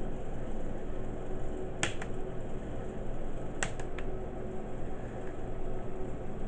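Plastic snap-in clips of a Lenovo ThinkPad E560's screen bezel clicking as the bezel is pried loose by hand. There is a double click about two seconds in, then three quick clicks a little later, over a steady low background hum.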